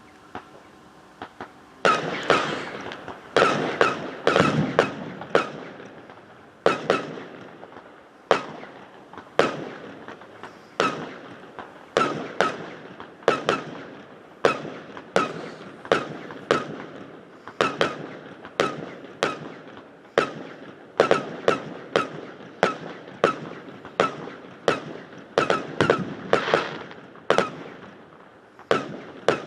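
A firework display: aerial shells bursting in quick succession, about one sharp bang a second after a few small pops at the start. Each bang trails off in a ringing echo off a metal hangar, which gives the bangs an odd sound.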